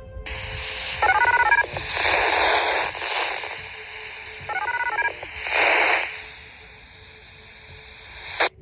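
Radio transmission sound: a steady hiss squeezed into a narrow radio-like band, with two short runs of stepping beeping tones, about one second and four and a half seconds in, each followed by a louder burst of static. A sharp click comes near the end.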